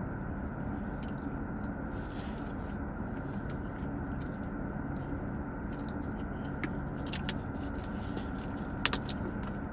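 Steady hum inside a car's cabin, with faint chewing and scattered small clicks, and one sharp plastic click near the end as a water bottle is handled.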